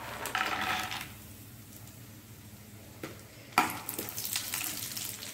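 Hot ghee in a pan breaking into a sudden hissing sizzle about three and a half seconds in, as dry fruits are tipped into it to fry.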